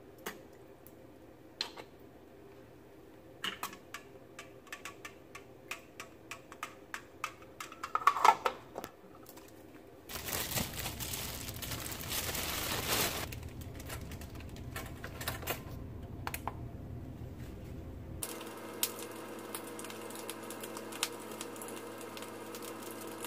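Kitchen counter handling sounds: light clicks and taps of cups and objects set down on a stone countertop, with a ringing clink about eight seconds in as the loudest sound. Then a stretch of rough noise lasts several seconds. Near the end, light taps and scrapes come as a knife works at toast on a ceramic plate over a steady background hum.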